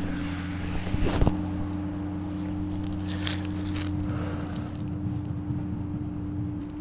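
A steady low mechanical hum with a constant tone throughout. Over it, footsteps and rustling in the grass, with a few louder knocks about a second in and scuffs around three to four seconds.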